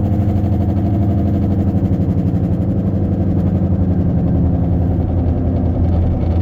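Loud low drone with a fast, pulsing wobble from a Toyota Camry heard inside the cabin as it slows at speed: the vibrating noise that the owner takes for a worn wheel bearing.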